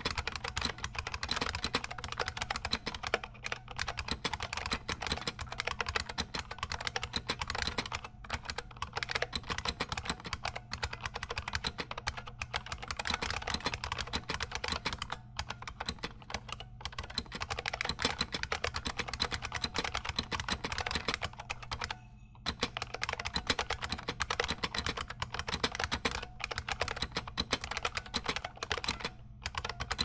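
Fast, continuous typing on an IBM Model M keyboard: its buckling-spring keys clack in a dense stream, with a few short pauses, the clearest about two-thirds of the way through.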